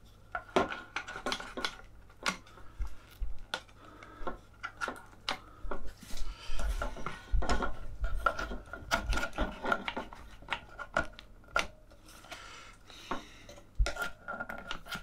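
Clamps being put on and tightened around a freshly glued wooden half-lap frame: irregular clicks, knocks and clatter of the clamps against the wood.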